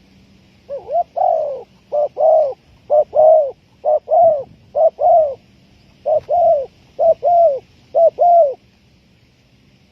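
Spotted dove cooing: eight two-note coos in a row, each a short note followed by a longer one, repeated about once a second. The calls start about a second in and stop shortly before the end.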